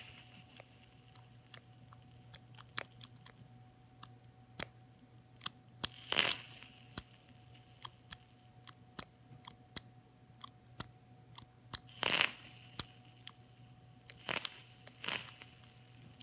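DotMod dual mechanical vape mod misfiring: a string of sharp clicks with only four short crackling bursts, near the middle, about two-thirds through and twice near the end, where the coil fires only intermittently. A faint steady hum runs underneath.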